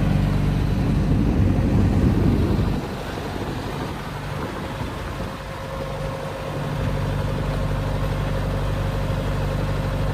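Bobcat S160 skid steer's diesel engine running. It drops in level about three seconds in, runs unevenly for a few seconds, then settles back to a steady idle.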